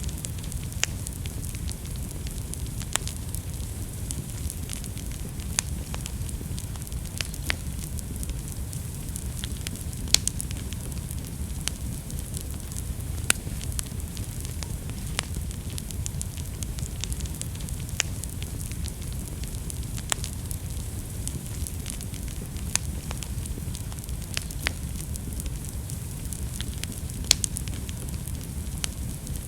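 Wood fire burning in a fireplace: a steady low rush of flames with sharp crackles and pops of the burning wood, scattered irregularly about once every second or two.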